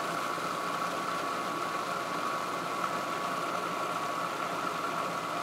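Food processor motor running steadily with a constant whine, blending cottage cheese, Parmesan and garlic into a smooth sauce; it stops at the very end.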